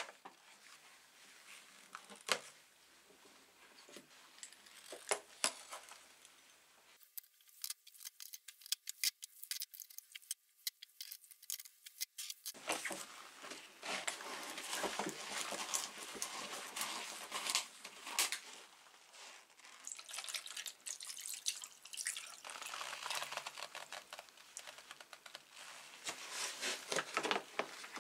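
Rusty steel drill parts and gears clinking as they are set down in a plastic tub, then liquid being poured over them, with more clatter of metal and plastic.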